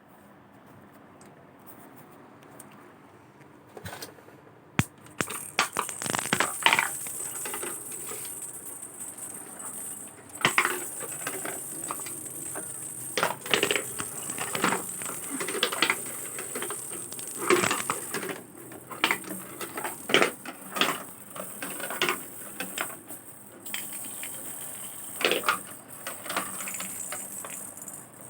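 Marbles clicking and rattling on a hard surface as they are batted about, in irregular bursts of sharp knocks that start about four seconds in.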